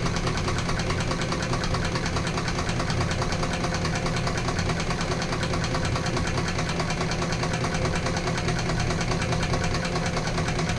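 Techsew 5100 walking-foot sewing machine running steadily to wind a bobbin, its moving parts making a fast, even clatter over a steady motor hum.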